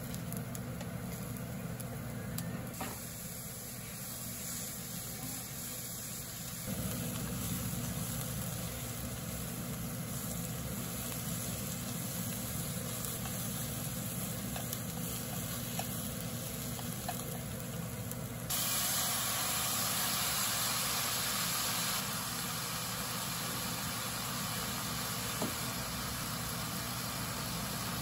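Dried anchovies and shishito peppers sizzling as they are stir-fried in a frying pan, over a steady low hum, with occasional light clicks of the spoon and chopsticks against the pan.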